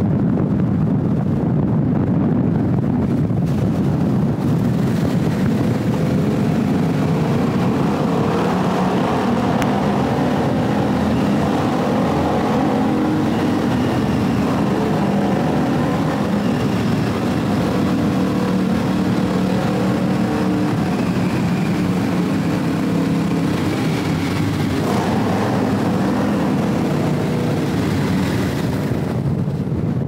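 Vehicle engine and road noise while driving through a road tunnel, a steady engine hum held in by the tunnel walls. Wind rushes on the microphone in the first few seconds before the tunnel and again near the end as the vehicle comes out.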